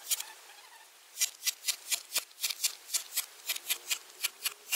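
Cordless screwdriver working the screws of the aluminium high-voltage battery pack lid, giving quick, even clicks at about four to five a second, with a pause of about a second near the start.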